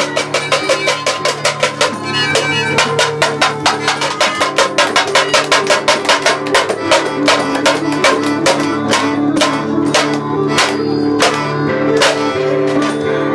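Music of a large upturned steel bowl beaten by hand as a drum, in a fast even run of about five or six metallic strikes a second. Under it are held notes from a keyboard harmonica (melodica).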